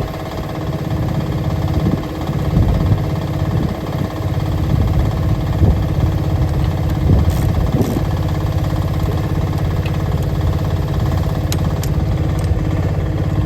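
Mini excavator's diesel engine running steadily while it digs, its pitch and level swelling and easing with the load in the first half. A few short sharp clicks come near the end.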